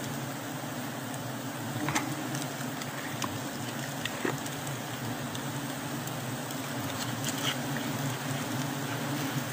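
Honeybees humming steadily around an exposed, freshly cut wild comb, with a few short clicks and crackles as a knife cuts through the wax comb.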